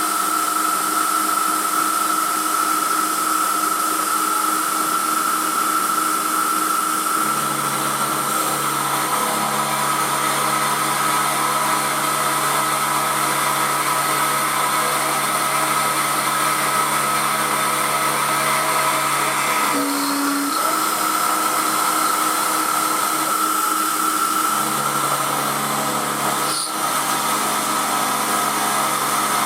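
Emco F1 CNC milling machine running, with a steady spindle whine and the noise of the cutter milling a cast aluminium engine pan. A lower hum comes in about seven seconds in and shifts twice later on, and there is one sharp tick a few seconds before the end.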